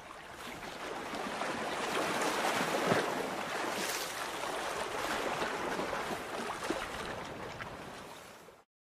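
Rushing water sound effect, like surf, swelling up over the first couple of seconds, holding, then fading away and stopping shortly before the end.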